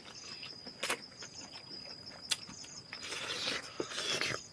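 Insects trilling steadily at a high pitch, with two sharp clicks and a longer rustling noise about three seconds in.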